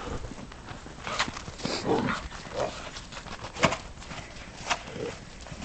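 Greyhounds play-fighting in snow: short dog growls and grumbles, mixed with scattered sharp crunches and scuffs.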